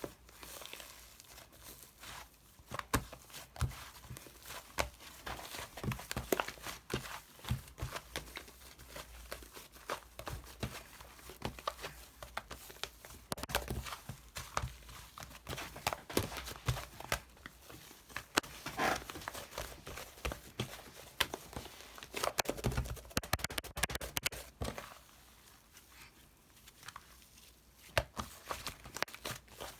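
Close-up handling sounds: irregular crinkling, clicking and scratching, like wrapping or paper being handled, with a quieter stretch near the end.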